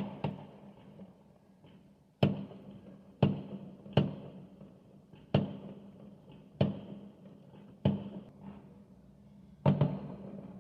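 Fireworks exploding: about nine sharp bangs at uneven intervals, one to two seconds apart, each with a short echoing tail.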